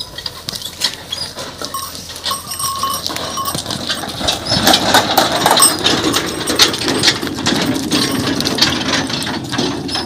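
Bullock cart pulled by a pair of bullocks: the bullocks' neck bells jingle and clink, and the cart's frame rattles as it rolls. The rattle and rumble get louder about four seconds in.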